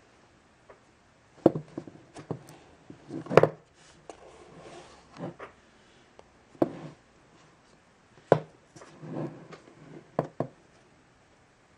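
Cardboard iPad mini box handled and turned over a wooden table: irregular knocks and taps, five or so sharper ones, with fingers rubbing and sliding on the card in between.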